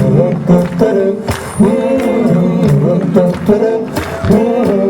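Live rock-and-roll band playing an upbeat oldies number: drums striking under bass and a bending melody line.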